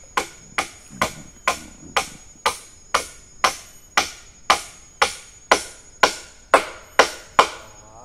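Hammer driving a nail into wood: a steady run of about sixteen blows, roughly two a second, each with a short metallic ring.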